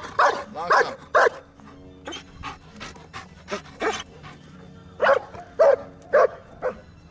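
German Shepherd barking in short, sharp barks while heeling: three loud barks in the first second or so, softer yips through the middle, then four more loud barks from about five seconds in.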